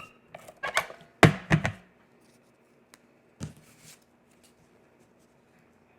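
Hands handling and pressing small cardstock pieces: a few quick paper rustles and taps in the first two seconds, the loudest about a second in, and another short rustle a little past three seconds.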